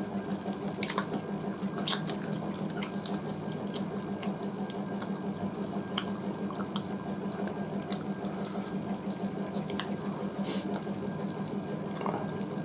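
Wet chewing and mouth sounds of people eating rice and curry by hand, with fingers squelching food against steel plates and many small scattered clicks and smacks. A steady low hum runs underneath.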